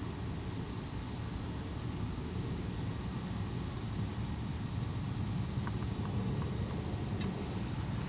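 A chorus of cicadas in the background forms a steady high-pitched drone that slowly swells and fades, over a louder low steady rumble.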